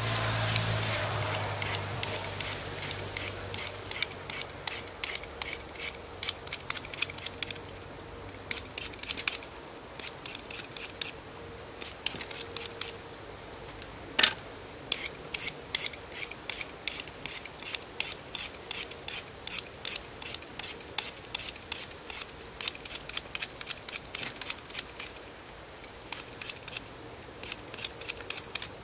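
Hand-held vegetable peeler scraping the skin off a raw potato in quick, short strokes, several a second.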